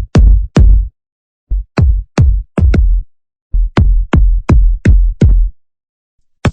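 EDM kick drum samples played one after another in short groups: about a dozen hits, each a sharp click with a deep boom that dies away in a fraction of a second, with silent gaps between the groups.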